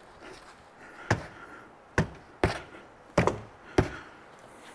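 About five sharp knocks at irregular spacing, from a hand pushing and tapping a Jeep Wrangler TJ soft top's frame into place.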